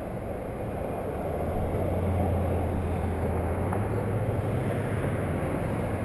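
Road traffic: a passing vehicle's engine rumble, growing louder about two seconds in and then holding steady.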